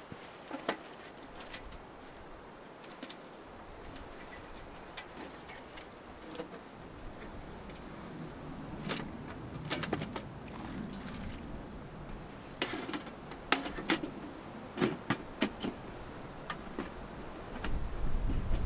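Scattered small clinks and knocks of camping kit being handled by hand on the ground, a few with a brief metallic ring, busiest in the second half. A low rumble rises near the end.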